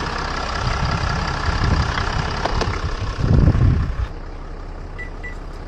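A vehicle engine running steadily, swelling briefly and then cutting off about four seconds in. Faint short high beeps follow in two pairs near the end, which fits the unlock beep he had been waiting for.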